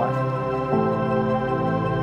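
Background music of slow, sustained chords, with the chord changing under a second in.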